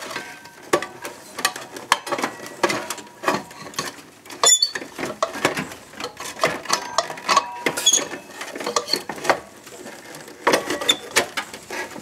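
A hard plastic CPU fan shroud being handled and fitted into a desktop PC's steel case: a run of irregular clicks, knocks and scrapes of plastic against metal.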